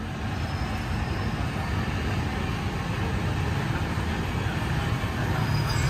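Steady rumble of city street traffic, growing slightly louder toward the end.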